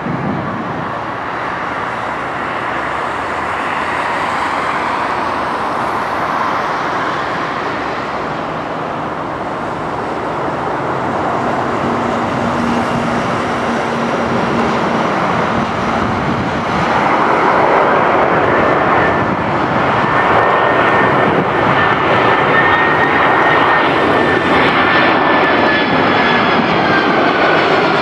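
Boeing 767-400's jet engines on approach to land, a steady rushing that grows louder as the airliner comes closer. A high engine whine rises out of it about two-thirds of the way through and drops slightly in pitch near the end as the plane passes.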